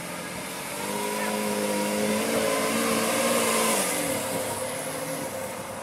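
Lamborghini Aventador's V12 engine as the car pulls away and drives past, its engine note building for a few seconds at a fairly steady pitch, then fading as it moves off.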